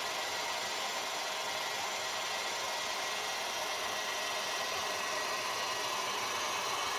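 Heat gun running steadily, a continuous fan-and-air hiss as it blows hot air onto a headlamp's lens seam to soften the glue.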